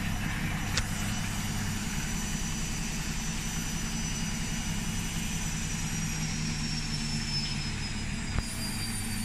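Two washing machines running, an Electrolux and an Arctic: a steady low motor and pump hum, with a faint high whine that slowly falls in pitch. The Electrolux is pumping out its water before the spin.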